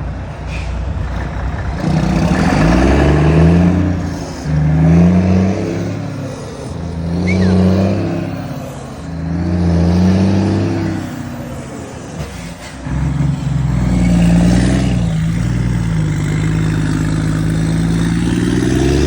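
Volvo FH truck's straight-six diesel revved repeatedly through an aftermarket exhaust: a series of revs, each rising and falling in pitch, with one held for several seconds near the end before a last quick rise.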